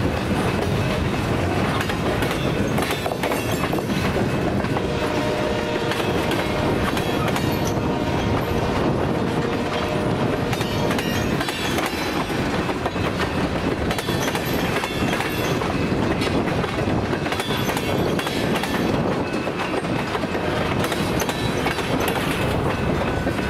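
Freight train's tank cars and steel-coil cars rolling past close by, with a steady rumble and the wheels clicking over the rail joints.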